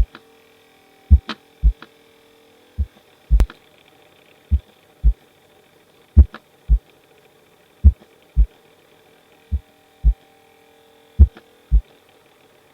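Recorded heart sounds heard through a stethoscope: paired lub-dub beats in a slow, even rhythm of about one cycle every 1.7 seconds. The first heart sound changes in loudness from beat to beat, a variable S1 of the kind heard with AV dissociation or atrial fibrillation. A faint steady hum runs underneath.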